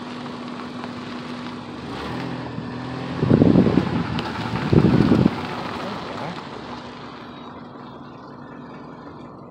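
Wind noise on a handheld camera's microphone, with two loud gusts about three and five seconds in, over a faint steady hum.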